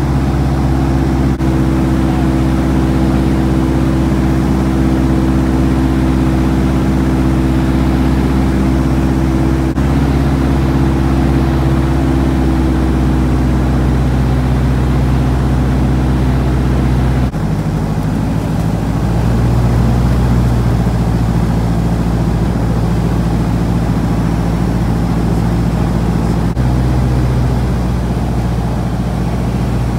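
Small plane's piston engine and propeller droning steadily, heard from inside the cabin. The drone jumps abruptly to a slightly different pitch a little past halfway.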